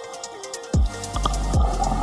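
Electronic music with a deep, steady bass line and low drum hits that drop in pitch, two of them about 0.8 s apart.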